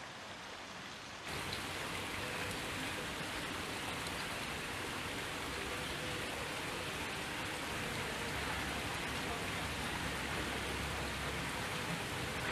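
Steady rushing noise with no separate events, stepping louder about a second in and then holding even.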